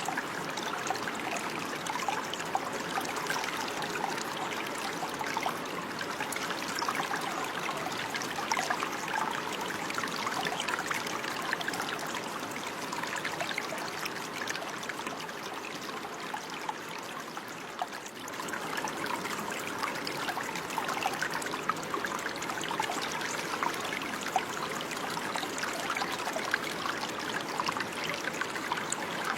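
Running water trickling and splashing steadily, like a small stream over stones, with many small splashing sounds.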